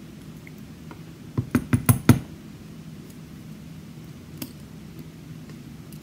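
Small metal lock parts clinking as they are handled: about five quick sharp clicks in under a second, then one fainter click a few seconds later.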